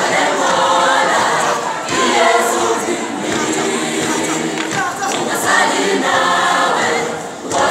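Large choir singing a cappella, many voices in harmony, with a brief drop in loudness near the end as a phrase closes.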